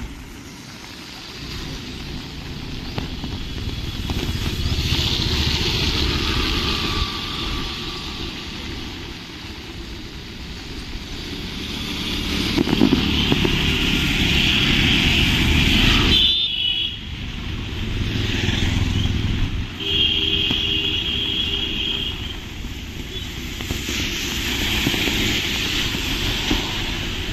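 Road traffic, with motorcycles and cars passing and the noise rising and falling as each goes by. About twenty seconds in there is a short, steady tone lasting a couple of seconds.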